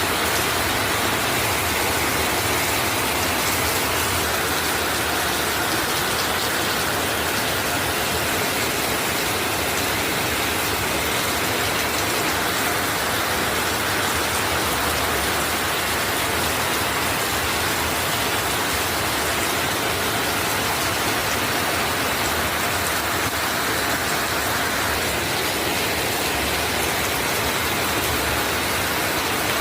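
Heavy rain pouring down, a dense, even rush of noise that holds steady throughout.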